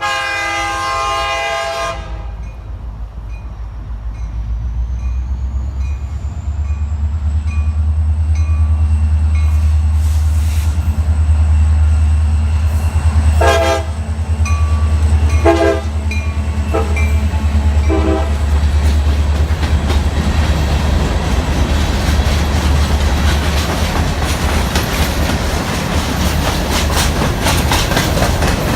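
A CSX EMD GP40-2 diesel locomotive's horn sounds one loud blast, then the locomotive's deep engine drone grows louder as it comes by, with several short horn toots in the middle. Over the last part the rumble and clatter of the loaded rock cars rolling past takes over.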